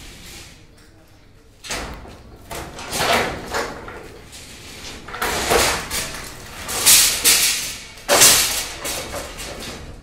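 Wooden shuttering boards being knocked loose from under a cast concrete slab with a long pole, falling and clattering on the concrete floor in a series of crashes, the loudest in the second half.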